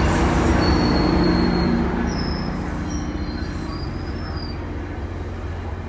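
GO Transit passenger train, diesel locomotive 654 and its bilevel coaches, rolling past with a steady rumble of wheels on rail. The locomotive's engine drone fades over the first couple of seconds, and short high-pitched squeals come from the running gear. The rumble slowly fades as the coaches go by.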